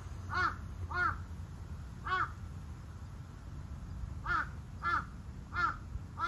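A crow cawing repeatedly in short calls: about three in the first second or so, one just after two seconds, then a quicker run of about three from four seconds in.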